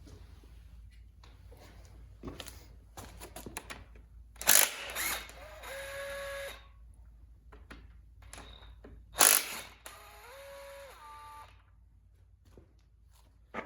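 Clinks of tools on metal while working on the main bearing caps of a Rumely 6A engine. Twice there is a loud sudden burst, about four and nine seconds in, each followed by a second or so of a small motor's steady whine that shifts in pitch, typical of a short run of a power tool.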